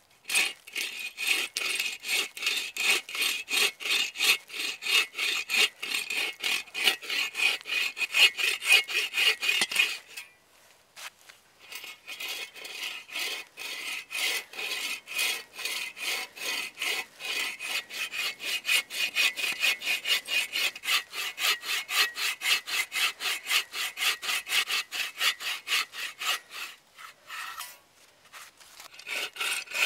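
Hand bow saw cross-cutting a log, in rapid, steady back-and-forth strokes of the blade through the wood. The sawing stops for about two seconds about ten seconds in, pauses briefly again near the end, then resumes.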